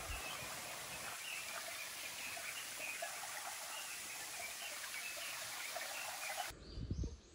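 Steady rushing of running water from a small stream. It cuts off abruptly about six and a half seconds in, followed by a few low thuds.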